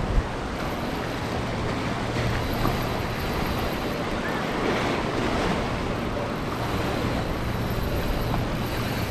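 Surf washing over the rocks in a steady rush, with wind on the microphone.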